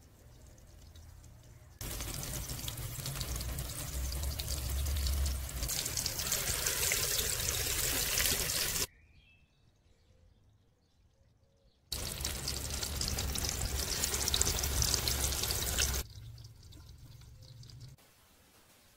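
Shami meat patties sizzling and crackling in hot oil in a pot, in two loud stretches that start and stop abruptly, with a quieter gap in between.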